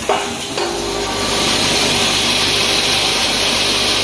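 Hardware-pin packaging machine running in automatic mode: a steady hiss over a low hum, which swells and settles about a second in after a short knock right at the start.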